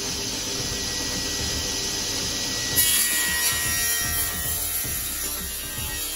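Background music over table-saw work: a reclaimed wood board sliding and rubbing across the saw's sliding table, with a louder, brighter noise setting in a little under three seconds in.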